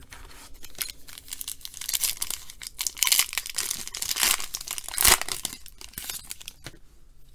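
Foil wrapper of a 2013 Panini Certified football card pack crinkling and tearing open, with several sharper, louder rips about three to five seconds in.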